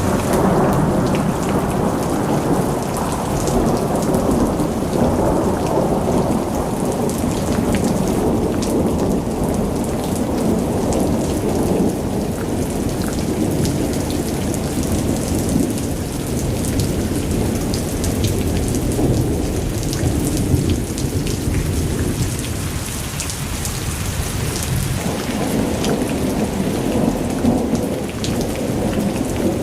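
Heavy rain pouring steadily, with fine drop patter on top and a deep rumble underneath that eases off around the middle and swells again near the end.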